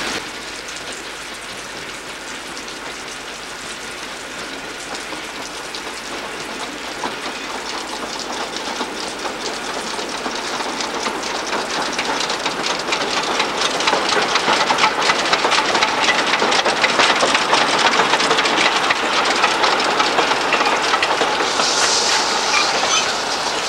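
Narrow-gauge steam locomotive No. 5 Hamra, a 0-4-4-0, approaching with its train of coaches, the wheels clattering over the rails and growing louder as it comes alongside. A brief high hiss sounds near the end.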